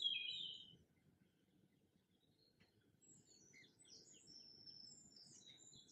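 Birds chirping: a loud burst of high chirps at the start, then a quiet gap, then a run of softer, quick twitters from about halfway through.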